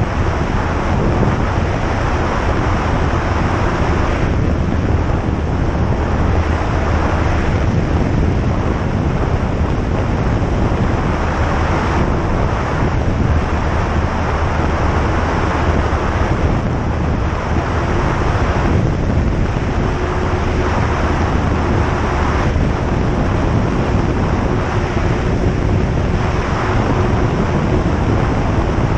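Single-engine piston light aircraft heard from inside the cockpit: the engine and propeller give a steady low drone under a constant rush of air noise.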